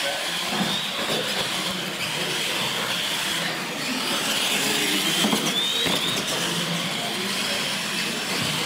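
Radio-controlled monster trucks racing on a concrete floor: the whine of their electric motors over tyre noise, rising and falling about five to six seconds in.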